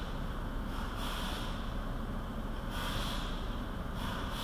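Short hissing bursts, one every second or so, over a steady low rumble, from cleaning work in the engine bay under the raised hood, heard from inside the car.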